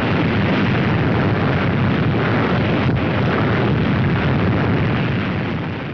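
Sustained rumble of a nuclear test explosion: a loud, steady wall of noise that fades away near the end.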